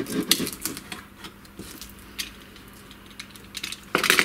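Plastic blister packaging being worked open with a utility knife on a wooden workbench: scattered small clicks and crackles, thickest at the start, then a louder clatter near the end as the knife is set down on the bench.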